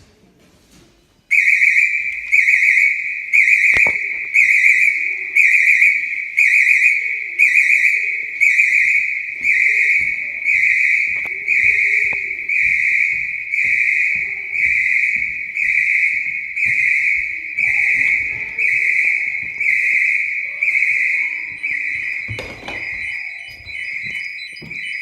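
Fire alarm sounder switching on abruptly about a second in and sounding a loud, high-pitched pulsing tone, a little over one pulse a second: the evacuation alarm set off during a test of the fire alarm system.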